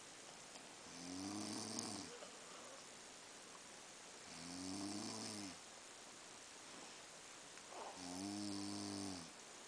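A sleeping person snoring: three long, pitched snores about three and a half seconds apart.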